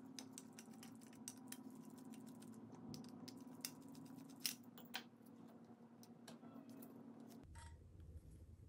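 Faint, irregular small clicks and light scrapes of a hand tool and fingers working on the brass dial and movement of an antique clock, with a steady low hum underneath; the clicks stop near the end.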